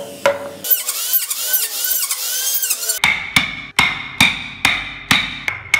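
Steel wood chisel being struck with a hammer to cut into a wooden block, sharp ringing blows about two to three a second that start about halfway through. Before them, a rhythmic back-and-forth scraping.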